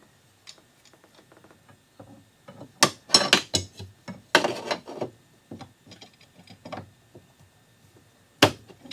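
Irregular clicking and knocking of a car's windshield wiper linkage and its greased bushings being worked by hand. Sharp knocks come in a cluster about three to five seconds in, with one more near the end.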